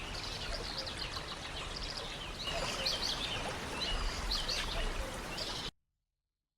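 Several forest birds chirping and trilling in quick, short calls over a steady hiss of rainforest ambience. The sound cuts off suddenly to silence near the end.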